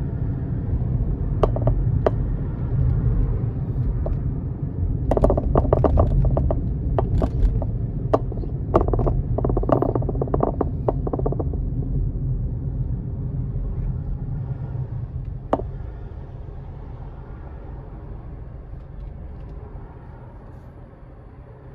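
Car road noise heard from inside the cabin while driving: a steady low rumble that fades as the car slows to a stop at an intersection. Scattered sharp clicks come through in the middle.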